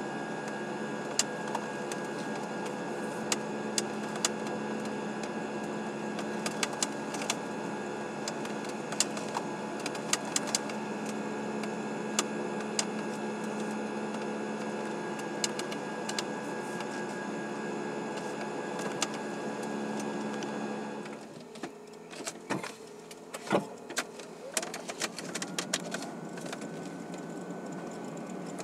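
Steady mechanical hum inside a car cabin, with a low and a higher steady tone and scattered sharp clicks. About 21 seconds in the hum cuts off, leaving quieter, irregular clicks and knocks.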